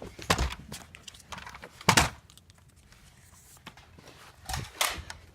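Scattered knocks, clatters and rustles from a handheld camera and a Nerf blaster being carried and handled while moving about a small room, the sharpest knock about two seconds in.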